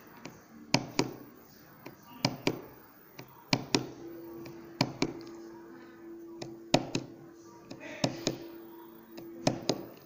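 Push buttons on a handheld industrial radio remote control being pressed one after another: sharp plastic clicks that come in close pairs, about seven pairs spaced a second or so apart.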